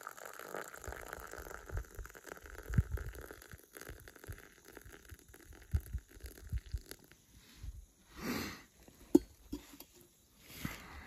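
Just-boiled water poured from a metal camping pot into a metal mug as a steady splashing stream for about seven seconds, with a few low thumps along the way. Near the end comes a short rustle and then a sharp knock as the pot is set down on the rock.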